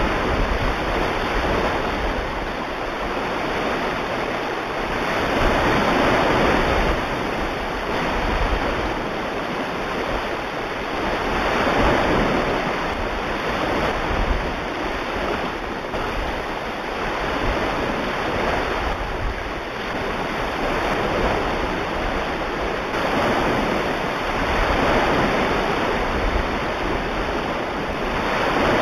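Ocean surf: waves washing in and drawing back, with a swell every few seconds.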